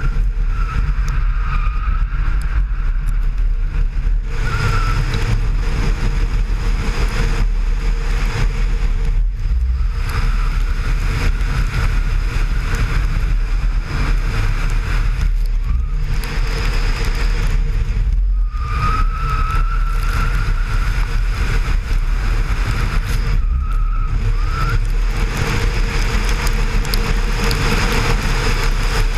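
BMW E36 engine running hard while the car drifts on a wet track, heard through heavy wind rumble on a microphone mounted outside the car. A thin wavering tyre squeal comes and goes several times, and the engine sound briefly drops away a few times.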